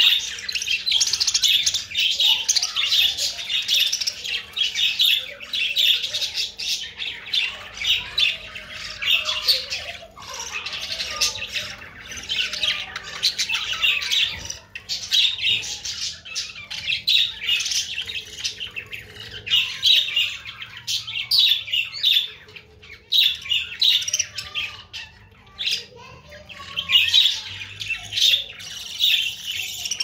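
Budgerigars chattering and warbling without pause, a rapid run of chirps and squawks. The chatter thins out for a few seconds past the two-thirds mark and then picks up again.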